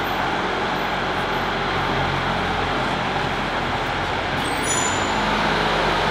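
Steady mechanical drone: an even hiss with a low hum, as from machinery or an engine running in a large warehouse.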